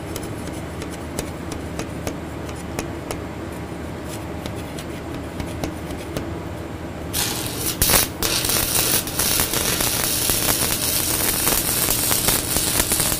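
Stick-welding arc struck about seven seconds in, stuttering once and then crackling and sizzling steadily as a tack weld is laid on the inside of a steel jig foot. Before the strike there is only a low steady hum with a few faint ticks.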